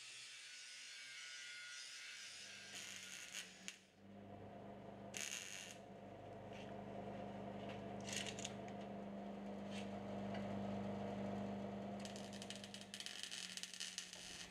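MIG welder tack-welding a steel bar, several short crackling bursts over a steady low hum. An angle grinder's high hiss on steel fades out in the first couple of seconds.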